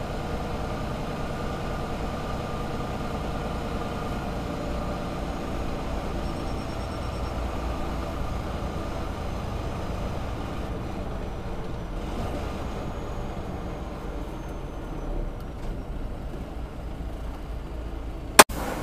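Semi-truck's diesel engine idling steadily, with a single sharp click near the end.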